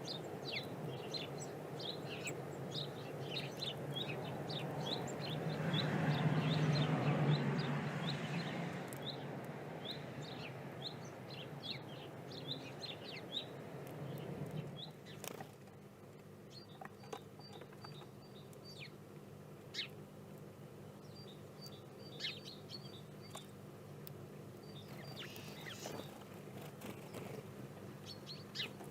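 Small songbirds chirping and calling outdoors, with many short, high chirps in the first half. A rush of noise swells and fades about six seconds in. After a cut about halfway through the sound is quieter: brief quick runs of high notes repeat a few times over a steady low hum.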